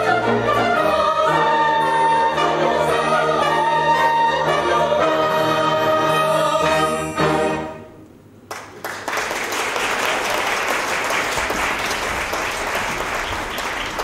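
An operetta chorus sings with a pit orchestra and ends on a held final chord about halfway through. After a brief hush, a theatre audience applauds steadily.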